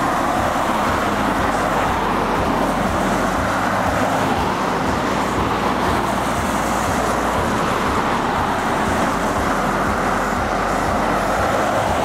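Road traffic passing on wet pavement: a steady hiss of car tyres on the wet road, with a low, evenly pulsing hum underneath.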